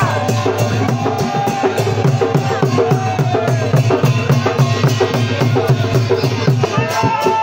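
Drums beaten in a fast, steady beat, with the pitched line of voices or a wind instrument over them.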